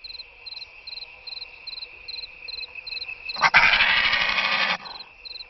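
Night-time crickets chirping, an even chirp about two and a half times a second over a steady high trill. About three and a half seconds in, a sudden loud noise that starts with a sharp click cuts across the crickets for about a second and a half, then stops.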